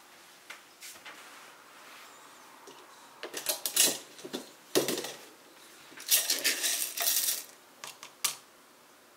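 Whole roasted coffee beans rattling and clattering against glass as a wooden scoop digs into a glass jar of them, in several bursts starting about three seconds in.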